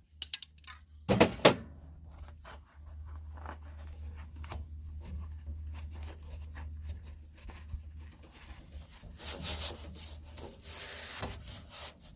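Hands rubbing and pressing a flexible drawer liner down into a tool box drawer over spray adhesive, working out the bubbles, with a thump about a second in.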